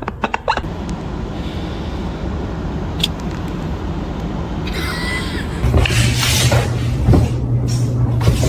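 A cat purring close to the microphone, a steady low rumble that grows louder a little past halfway through.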